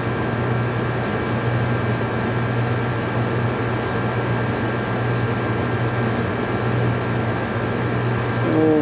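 Window-type air conditioner running: a steady low hum with fan noise and a few faint steady higher tones.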